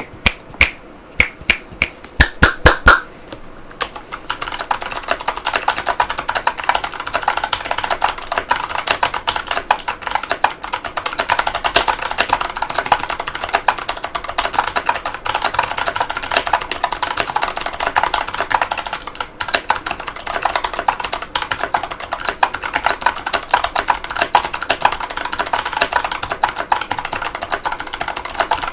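Keychron V6 mechanical keyboard with clicky Kailh Box Pink switches and PBT keycaps: about ten separate, loud keystrokes with a short ringing tone, then fast continuous typing from about four seconds in.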